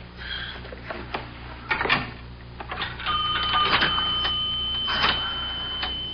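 A payphone being used: clicks and a clatter as a dime goes in and the number is dialled. About three seconds in, steady ringing tones begin.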